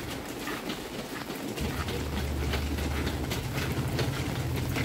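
Footsteps at a steady walking pace in the rain, with a low engine hum coming in about one and a half seconds in.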